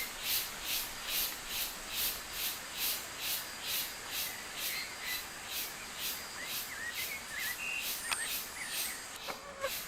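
Insect chirping in an even rhythm, about three high-pitched pulses a second. A few faint, short bird notes come in over it in the second half.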